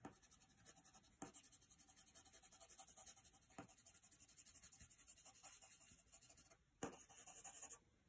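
Faint scratching of a coloured pencil scribbling quick circles on paper, in rapid, uneven strokes with a few light ticks, pausing briefly near the end.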